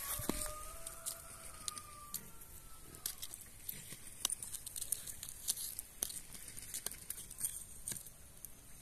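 Small open wood fire crackling, with irregular sharp snaps and pops. A long steady tone sounds over it for about the first three seconds.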